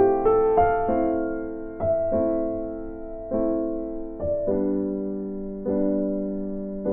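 Background music: a slow, gentle keyboard piece, notes and chords struck about once a second and left to ring out.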